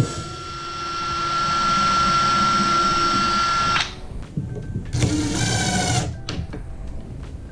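An electric power tool's motor runs with a steady high whine and cuts off suddenly about four seconds in. About a second later it runs again for a second, rising in pitch as it spins up.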